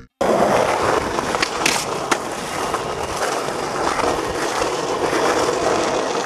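Skateboard wheels rolling over asphalt, a steady rumble, with a few light clicks about one and a half to two seconds in.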